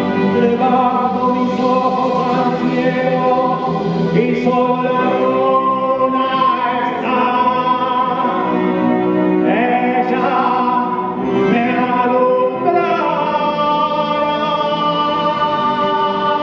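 Musical-theatre singing with musical accompaniment: a sung number with long held notes and no pauses.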